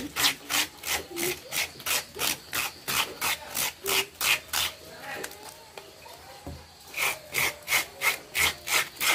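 Fresh cucumber flesh being scraped into shreds by hand, rapid rasping strokes about three a second. The strokes ease off for a couple of seconds past the middle, then pick up again.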